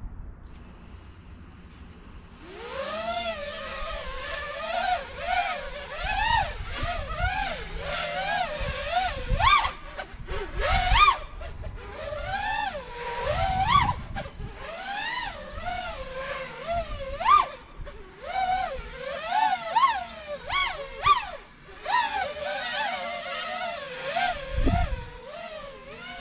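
Five-inch FPV quadcopter's motors whining as it lifts off about two seconds in and flies a tuning test flight of quick stick inputs, flips and rolls. The pitch swings up and down in rapid short bursts with each throttle and stick movement, then settles to a steadier whine near the end.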